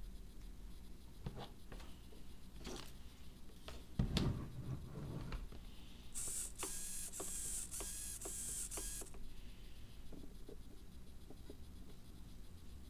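Small hobby RC servo buzzing in a quick series of short back-and-forth moves for about three seconds, running on a low supply of about 2.8 V. A soft knock comes just before it.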